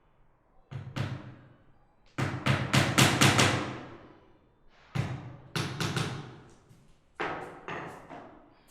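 Hammer driving nails into a wooden door: sharp blows in bursts, with a quick run of about seven or eight strikes around two to three seconds in, then groups of two or three blows with short pauses between, each blow ringing briefly.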